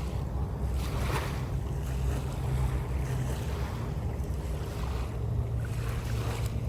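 Motor of a powered watercraft running steadily with a low hum, with water wash and wind noise over it, surging softly now and then.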